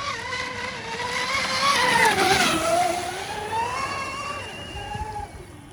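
The twin electric motors of an RC catamaran speedboat give a high whine as it passes by. It is loudest about two seconds in, where the pitch drops as it goes past, then the whine rises again briefly before fading.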